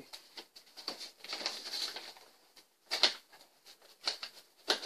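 Pocket knife cutting packing tape on a cardboard shipping box: irregular scratchy scraping and rubbing strokes, with a sharp knock about three seconds in and another near the end.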